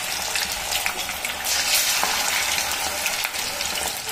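Rice-flour-battered chicken deep-frying in hot oil, just added to the pan: a steady sizzling hiss full of fine crackles, briefly louder about a second and a half in.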